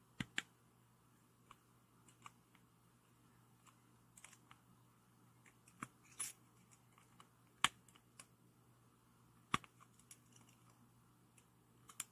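Faint, scattered clicks and ticks of the steel jaws of Engineer Neji-Saurus PZ-22 screw-extraction pliers gripping and shifting on a small stripped screw head in a flashlight's metal pocket clip, with a few sharper clicks here and there.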